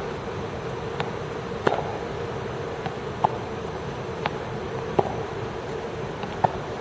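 Tennis balls being hit with rackets and bouncing on the court: a string of sharp pops, about one a second at an uneven pace, over a steady buzzing hum.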